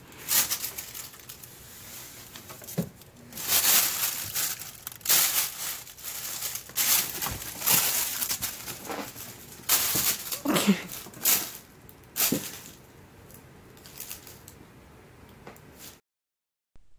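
Irregular bursts of crinkling and rustling as a baby ferret plays, cutting off suddenly near the end.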